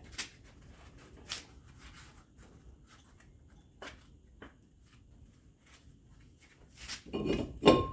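Brake pads and caliper parts being worked into place by hand: scattered light clicks and taps, then a burst of louder metallic clanks near the end.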